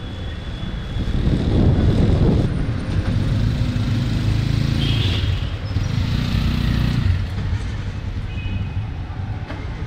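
Road traffic: a motor vehicle's engine running close by as a low rumble, loudest through the middle.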